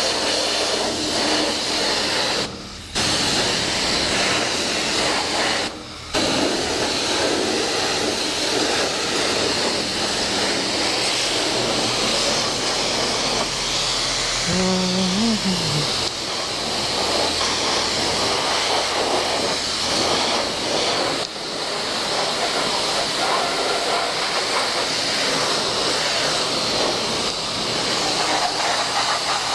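High-pressure car-wash wand spraying water onto a dirt bike: a steady hiss that cuts out briefly about 3, 6 and 21 seconds in as the trigger is let go.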